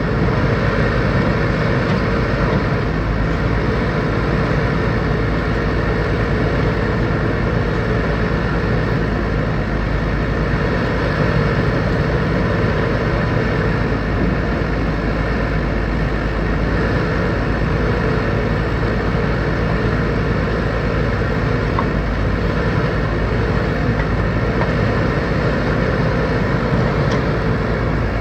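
Backhoe loader's diesel engine running steadily while it digs and loads mud.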